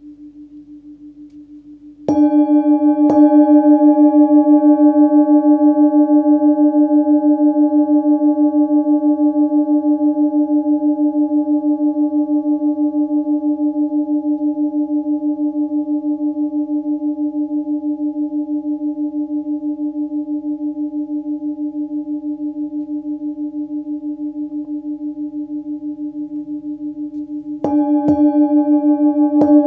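A 16 cm forged singing bowl tuned to about 299 Hz (D) is struck twice with a felt mallet about two seconds in. It rings with a pulsing, wavering hum and faint overtones that slowly fade. Near the end it is struck again three times.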